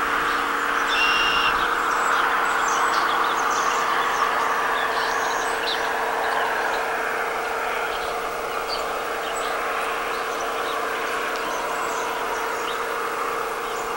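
Scattered bird chirps, including a clear whistled note about a second in, over a steady rushing noise that swells over the first few seconds and slowly eases off, with a steady hum underneath.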